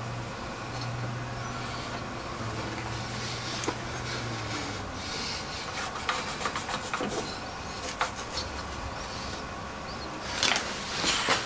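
Faint rubbing, scraping and a few light clicks of parts and metal being handled, over a steady low hum.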